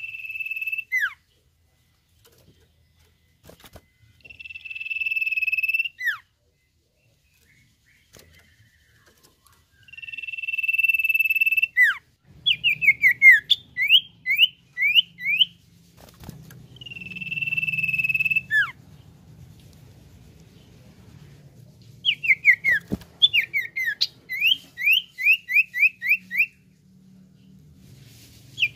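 Common iora (cipoh) whistling. Long, steady high whistles, each ending in a quick downward slur, alternate with two runs of rapid descending notes at about three a second.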